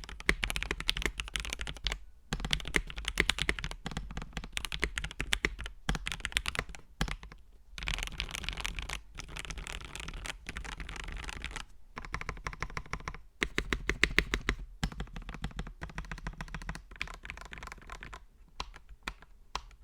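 Typing on a GAS67 mechanical keyboard with Gateron Milky Yellow Pro linear switches: fast runs of key presses broken by several short pauses.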